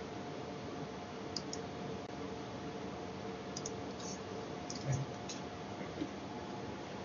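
Steady low room hum through the lecture microphone, with a handful of faint small clicks scattered through the middle and a soft thump about five seconds in.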